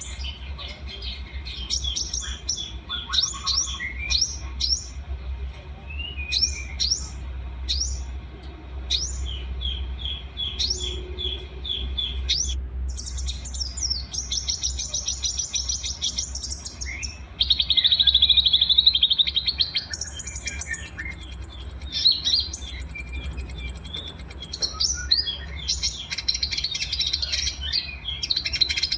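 Several small songbirds singing together in a dense mix of quick chirps, sharp falling notes and long high trills, with no pause, over a steady low hum.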